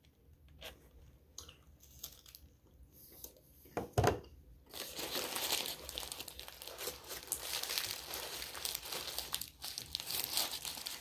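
Paper sandwich wrapper crinkling and rustling as a wrapped brisket sandwich is handled and bitten, with a single thump about four seconds in. The crinkling becomes dense and continuous from about five seconds in.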